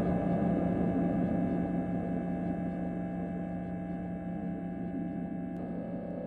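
A sustained drone of held, ringing tones slowly fading out at the end of an eerie ambient soundtrack.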